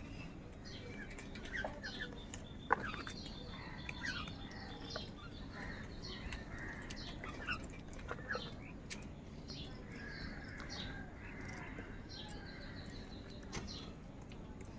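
A flock of house crows feeding, with bird chirps and short calls all through and a single sharp knock about three seconds in.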